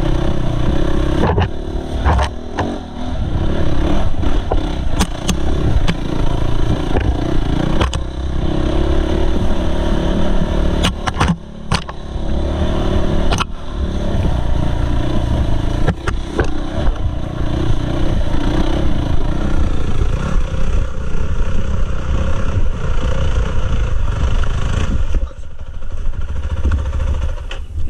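Dirt bike engine revving up and down under load while climbing a rough trail, with sharp knocks and clatter from the bike hitting stones and brush. The engine drops back near the end.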